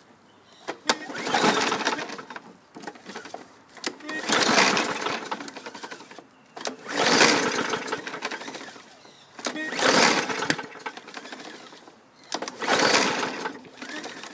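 Briggs & Stratton 140cc engine on a Craftsman push mower being cranked by its recoil pull-starter: five pulls about three seconds apart, each a second or two of the engine turning over without catching. The owner finds it spins over freely with little compression, with a knock, and takes it for timing that is off.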